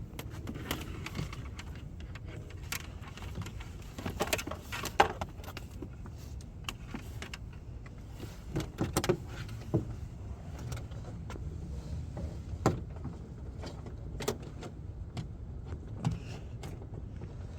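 Scattered small clicks and knocks of a car part being handled and fitted into the interior, the sharpest about five seconds in and a quick run of them around nine seconds, over a steady low rumble.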